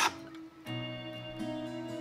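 A single scraping stroke of a hand plane shaving a board's end on a shooting board right at the start, then background music.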